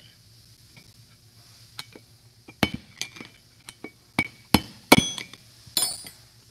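Hammer striking a steel punch set against a wheel-bearing race in a disc-brake hub, driving out a race that got stuck: about ten sharp metallic taps with a ringing note, irregularly spaced, starting about two and a half seconds in, the hardest blows near the middle of the run.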